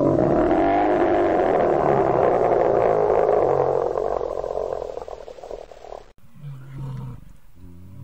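Bear roaring: one long, loud roar of about six seconds that slowly fades and then cuts off. It is followed by quieter, lower growling grunts near the end.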